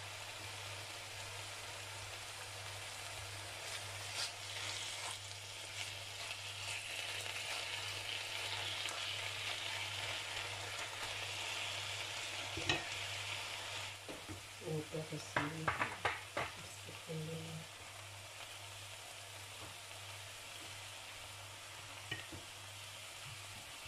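Chicken strips frying in sunflower oil in a stainless steel pan: a steady sizzle that swells through the middle and eases off near the end. Midway come a sharp click and then a run of knocks and scrapes as the pieces are stirred with a spatula.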